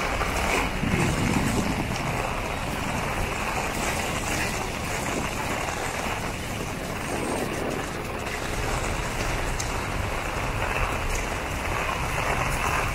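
Heavy rain falling steadily as an even hiss, with wind buffeting the microphone as a low rumble.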